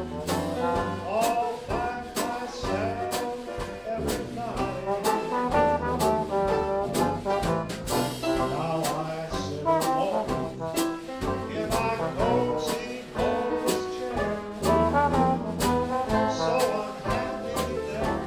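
Live traditional Dixieland jazz band playing an up-tempo number, trombone and trumpet leading over a steady drum beat.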